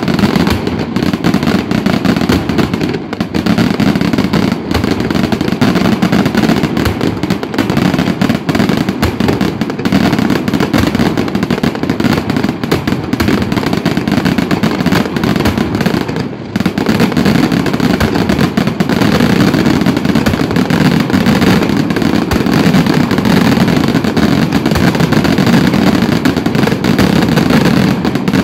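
Daytime aerial fireworks: a dense, rapid, unbroken volley of shell bursts and bangs, dipping briefly about sixteen seconds in.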